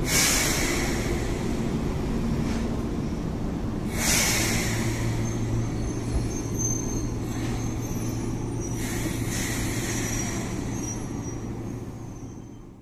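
Izuhakone Railway 7000 series electric train running along the rails with a continuous rumble. There is a burst of hiss at the start and another about four seconds in, then a steady low hum and faint high wheel squeals, and the sound fades away near the end.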